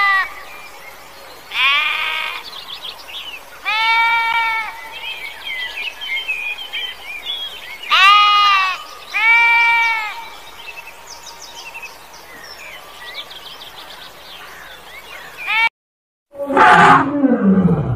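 Sheep bleating: four separate bleats, each about a second long, with faint high chirps between them. Near the end, a loud elephant call that falls in pitch.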